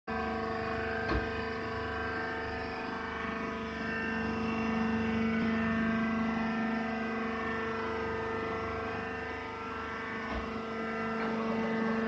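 Wood shavings baler's hydraulic power unit (electric motor and pump) running steadily with a constant hum, with a light knock about a second in and another near the end.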